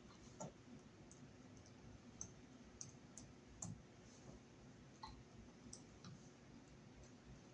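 Near silence broken by faint, scattered clicks of lineman's pliers and stiff copper wire being handled, about half a dozen over several seconds.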